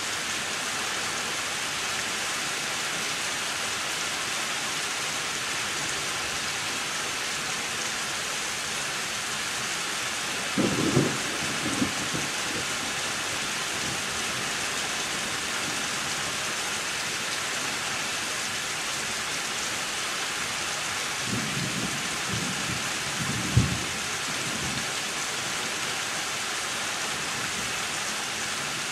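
Steady rain of a thunderstorm hissing down, with two low rolls of thunder: one about ten seconds in and a longer one about two-thirds of the way through that ends in a sharper clap.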